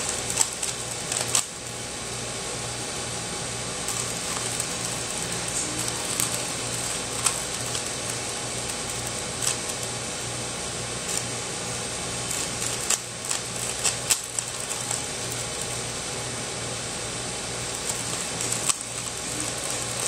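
Plastic layers of a 3x3 Rubik's cube clicking and clattering as they are turned quickly by hand, with sharper clicks every few seconds, over a steady low hum.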